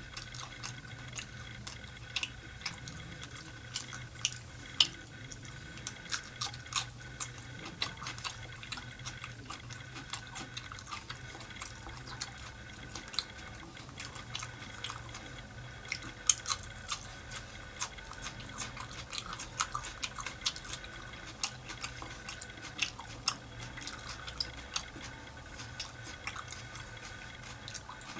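Close-miked chewing of soft, saucy chicken qorma: irregular wet mouth clicks and smacks, several a second, some sharper than others.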